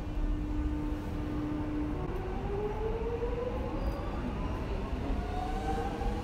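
Melbourne X'Trapolis electric train's traction motors under a steady rumble: a level whine for about two seconds, then two whines that climb steadily in pitch as the train accelerates.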